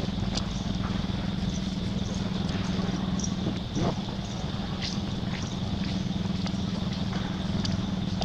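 A steady low motor hum, with a thin steady high tone above it and a few faint scattered clicks.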